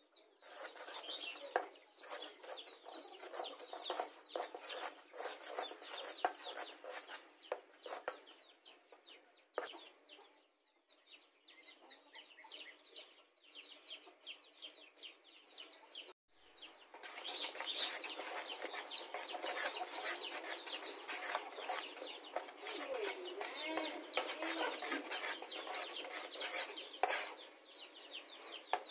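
Thick sauce boiling hard in an aluminium pot, a dense crackle of popping bubbles. It eases off around the middle, breaks off briefly, then comes back louder for the last ten seconds or so.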